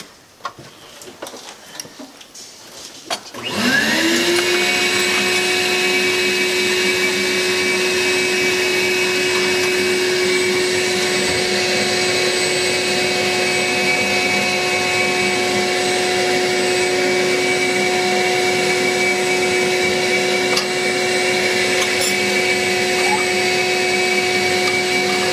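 A few light metal clinks, then about three seconds in an electric motor spins up with a quick rising whine and runs steadily at one constant pitch.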